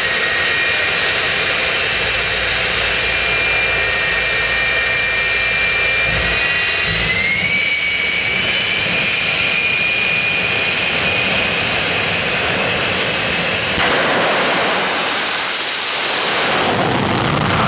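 Jet engine of a jet-powered drag-racing semi truck, whining at a steady high pitch, then spooling up to a higher whine about seven seconds in. From about fourteen seconds a loud rushing roar takes over as the truck launches down the strip.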